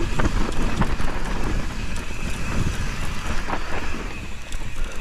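Mountain bike rolling fast down a dry dirt trail: wind buffeting the camera microphone with a heavy rumble, over the steady noise of knobby tyres on dirt and loose rock, with scattered rattling clicks from the bike.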